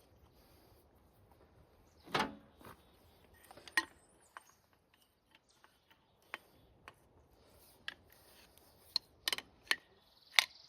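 Scattered metal clicks and clanks of a pipe wrench and hydraulic coupler fittings being handled, with a few louder knocks about two seconds in and a quick cluster near the end.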